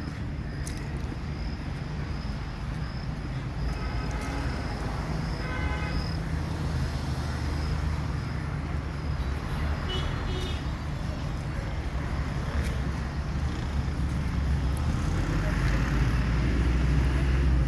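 Road traffic running steadily, with a vehicle growing louder near the end as it passes close by.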